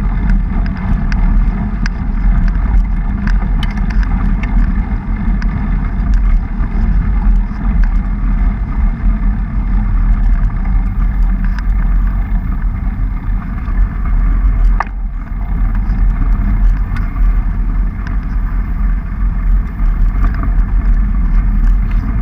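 Mountain bike rolling along a dirt road, heard as a steady low rumble of wind buffeting the camera microphone and tyre noise, with scattered light clicks and rattles and one sharp tick about fifteen seconds in.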